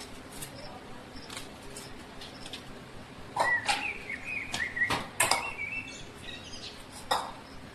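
Short bird chirps near the middle, over steady background noise, with several sharp clicks or knocks scattered through.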